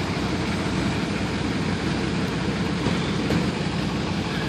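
Pickup truck engines idling steadily, a low even rumble, as two trucks sit strapped together before a tug-of-war pull.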